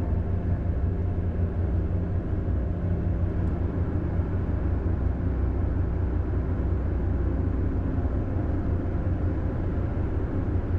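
Steady road and engine noise inside a Ford Super Duty pickup's cab while driving on the highway: an even low rumble with a lighter hiss above it.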